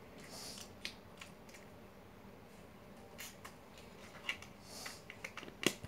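Small plastic slime containers being handled: a few light clicks and knocks with brief rustling, the loudest click near the end.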